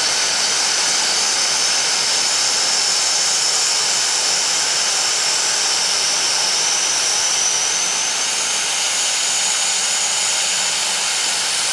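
Fan-shaped pyrotechnic stage fountain burning, its three jets of sparks giving a steady, even hiss. A faint high whistling tone in the hiss rises slightly in pitch partway through.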